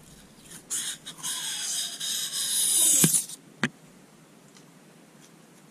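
A yellow strip wrapped around a crankshaft journal being pulled and peeled off: a rasping screech in a few short bursts, then a longer, louder one with a squeal falling steadily in pitch. It is followed by a single sharp click about three and a half seconds in.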